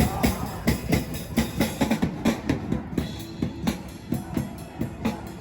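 Drums played in a quick, busy beat of repeated strikes.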